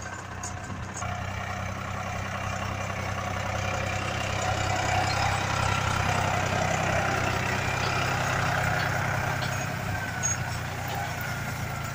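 Tractor diesel engine running steadily under load while pulling a rotary hay rake, with a steady hum and mechanical clatter. It gets a little louder in the middle, then eases off.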